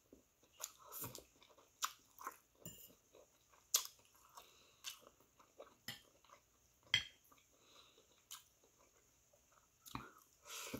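Close-up chewing and biting of pancit canton stir-fried noodles and vegetables, with irregular mouth noises and a few sharp clicks of a metal fork on a ceramic plate. A louder bite near the end.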